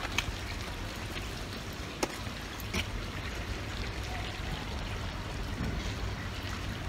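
Steady running and splashing of water from a public fountain, with a few faint clicks.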